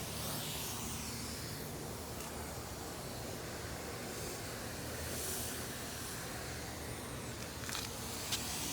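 Steady hissing background noise, with two short sharp clicks near the end.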